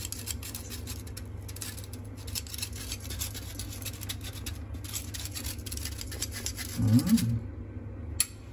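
Small metal mesh strainer being shaken and tapped to sift icing sugar, a rapid run of light scratchy ticks. A short hum from a person comes near the end.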